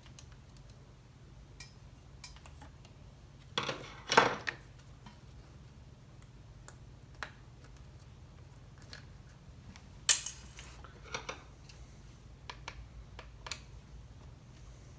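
Metal hand tools and chainsaw parts clicking and clattering during bench disassembly: scattered light clicks, with two louder clatters about four seconds in and again about ten seconds in.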